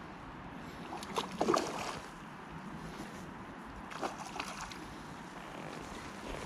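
Steady rush of river water, with two brief louder bursts, about a second in and about four seconds in.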